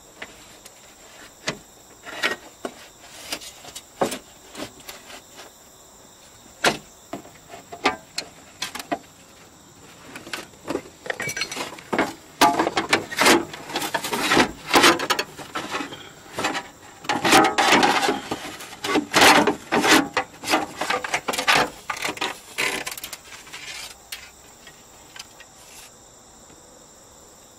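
Clicks, knocks and rattles of a car's metal window regulator and motor assembly being unbolted and worked out through the door's inner panel openings, busiest in a run of clatter midway.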